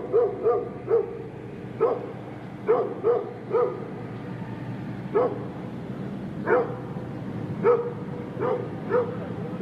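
A large dog barking: about a dozen short barks, some single and some in quick runs of two or three, with irregular pauses of up to a second and a half between them.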